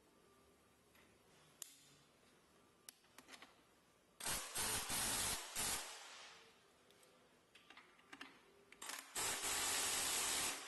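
Pneumatic wrench running in two loud bursts, about four seconds in and again near the end, with a strong air hiss, running down the clamp-band bolt on a diaphragm pump. Light metal clicks of the clamp being handled come before the first burst.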